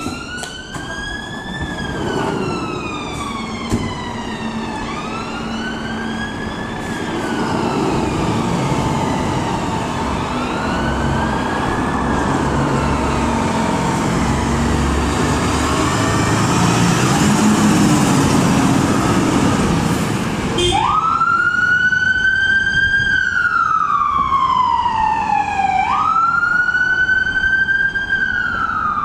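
Fire engine siren wailing, sweeping slowly up and down about once every five seconds, over the rumble of the appliance's diesel engine. About twenty seconds in, the siren comes in louder and clearer, each sweep rising quickly and falling slowly.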